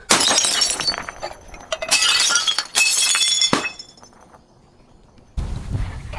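Glass bottles shattering: three loud bursts of breaking glass with ringing, tinkling shards, one after another over the first three and a half seconds. A low rumbling noise starts near the end.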